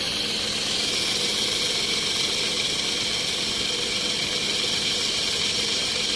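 Pressure washer spraying detergent water into a diesel particulate filter to flush out the soot clogging it: a steady hiss of the water jet over a low, steady hum from the pump.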